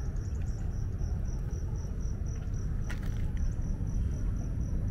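An insect, likely a cricket, chirping in a steady, high, rapidly pulsed trill over a low rumbling background noise, with a short click about three seconds in.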